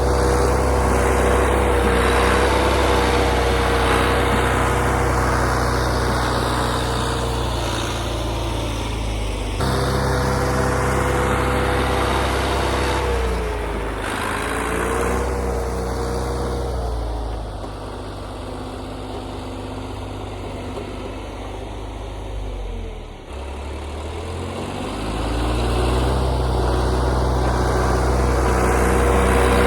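Old John Deere backhoe's engine running steadily while pushing snow. The engine eases back and runs quieter for several seconds past the middle, then picks up again near the end.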